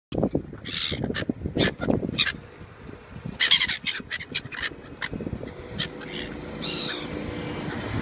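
Black-headed gulls calling several times close overhead, among short clicks and knocks.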